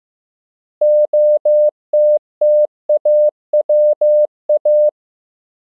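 Morse code practice tone, one steady beep keyed into short and long elements at 15 words per minute, spelling the word OTTAWA (dah-dah-dah, dah, dah, dit-dah, dit-dah-dah, dit-dah). It starts about a second in and stops about a second before the end.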